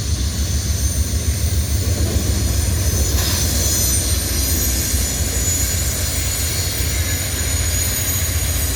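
Amtrak passenger train passing close by: a loud, steady rolling noise of wheels on rails.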